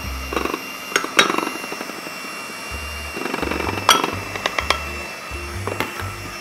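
Kenwood kMix electric hand mixer running, its beaters whisking egg yolk batter in a stainless steel bowl as almond flour goes in, with a few sharp clicks about a second in and near four seconds.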